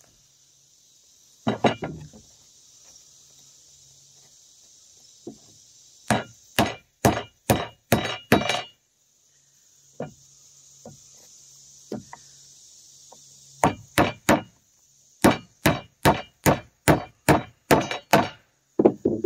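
Hammer driving 6d two-inch nails into a wooden ridge gusset on a roof truss. A couple of blows come about two seconds in, then a run of about eight blows, then, near the end, a longer run of about fifteen blows at roughly three a second.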